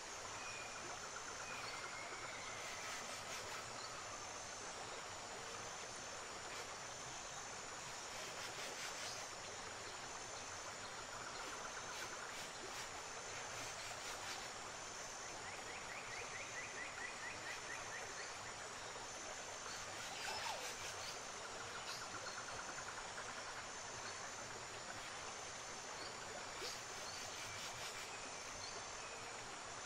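Steady rush of river water, with a high, steady insect buzz over it and short trilling calls now and then.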